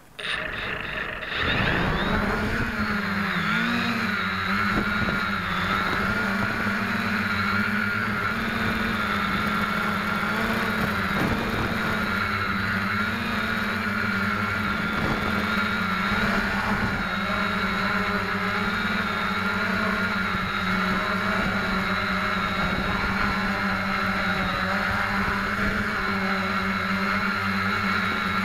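Electric motors and propellers of an SK450KK2 quadcopter, heard through the camera mounted on it: the motors spool up about a second and a half in, then run as a steady buzzing whine that wavers slightly in pitch with the throttle.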